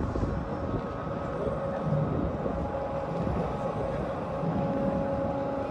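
Steady low rumble and hum of a cruise ship's machinery as it moves slowly past at close range, with a few steady tones held above the rumble.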